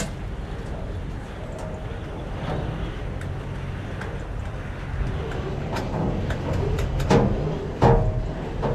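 A steady low engine drone, with two louder sudden sounds about seven and eight seconds in.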